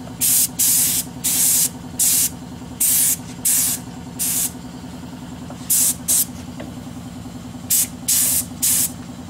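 Compressed-air paint spray gun hissing in about a dozen short bursts as the trigger is squeezed and released, in three groups. A steady low hum runs underneath.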